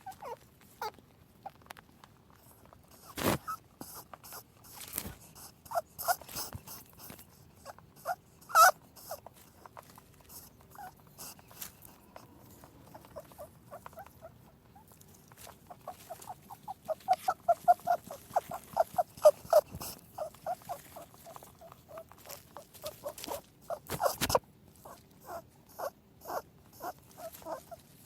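Rabbit chewing food, a quick run of short crunches several times a second, with a few louder sharp clicks.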